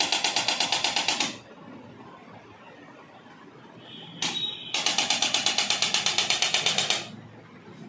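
Handheld electric percussion instrument rapidly tapping on the body in two bursts of about two seconds, roughly eight sharp taps a second, the second burst starting about five seconds in.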